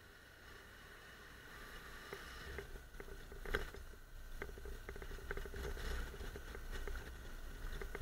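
Honda NC750X's parallel-twin engine running as a low, faint rumble while riding a rough, broken lane, with irregular knocks and rattles from bumps, growing louder after the first couple of seconds.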